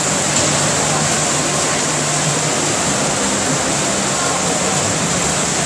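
Steady splashing and rushing water from a field of swimmers racing front crawl in an indoor pool.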